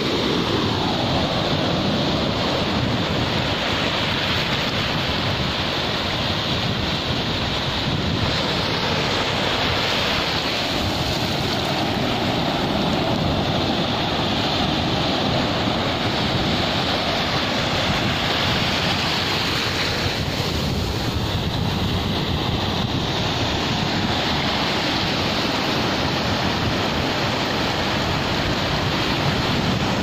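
Ocean surf: small waves breaking and washing up over the sand at the water's edge, the wash swelling and easing every several seconds, with wind buffeting the microphone.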